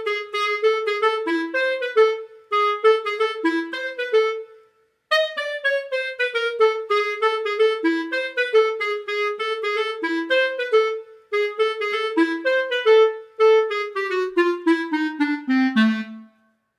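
Background music: a single melody line of quick notes on a wind instrument. It breaks off briefly about five seconds in, then ends on a falling run of notes.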